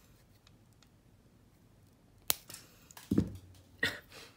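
A few separate sharp clicks and knocks from small metal jewelry parts, beginning about two seconds in, with the loudest knock about three seconds in.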